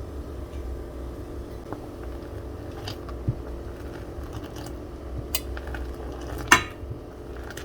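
Pot and utensil clinks and knocks while chai is being made on the stove, over a steady low hum. There are several light clinks, and the loudest comes about six and a half seconds in.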